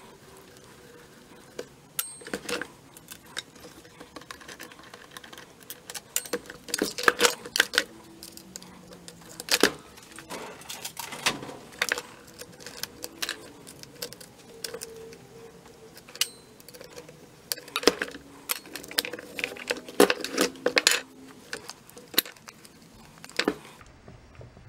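Hand tools and small screws clicking, tapping and clinking against a Husqvarna 350 chainsaw as it is taken apart to remove the handle. The taps come irregularly, in several short clusters.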